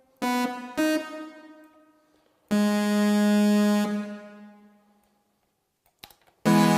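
Synthesizer chords played on a keyboard while a patch is being tried out. Two short chord stabs that die away, then a held chord that fades, and a louder sustained chord near the end.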